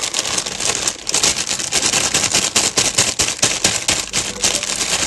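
Plastic salad bag crinkling and crackling as it is shaken upside down to empty the leaves into a bowl, a dense, unbroken run of sharp crackles.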